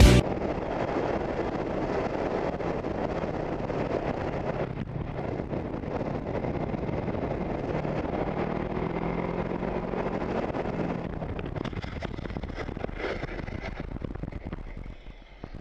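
Motorcycle engine running as the bike rides along, with wind rushing over the helmet camera's microphone; the sound grows quieter near the end.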